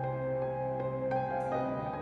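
Slow background music of held notes that change every half second or so.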